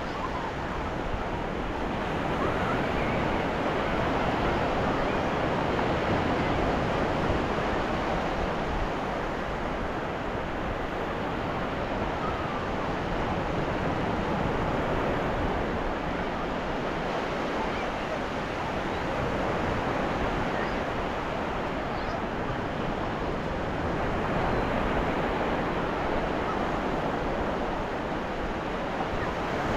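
Ocean surf washing onto a beach, a continuous rushing hiss that swells and eases slowly every few seconds as waves break and run up the shore.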